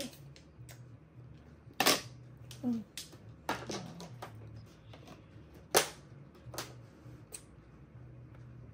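Mahjong tiles clacking onto a table in play: scattered sharp clacks, with two much louder ones about two and six seconds in.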